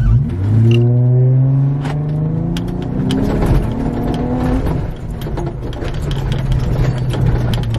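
Car engine heard from inside the cabin, rising in pitch as it accelerates over the first few seconds and then holding steady, with scattered sharp knocks and clicks as the car jolts along the rough dirt road.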